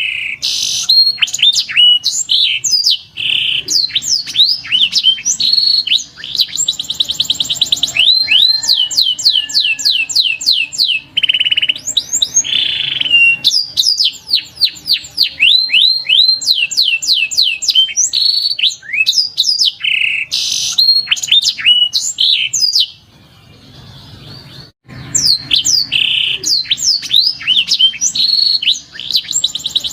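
Domestic canary singing: long, fast trills alternating with runs of repeated downward-sweeping notes, with a pause of about two seconds roughly three-quarters of the way through.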